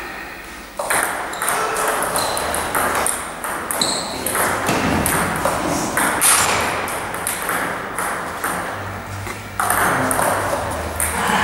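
Table tennis ball clicking repeatedly off the rubber bats and the table during rallies, with a steady background of noise from the hall.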